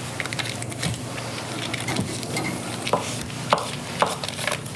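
Sticks of butter being unwrapped and cut on a wooden cutting board: paper wrappers rustling and small knife and butter knocks on the board, with a few sharper knocks about two, three and four seconds in.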